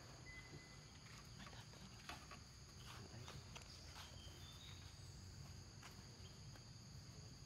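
Near silence: a faint, steady high insect chirring with scattered light clicks and rustles.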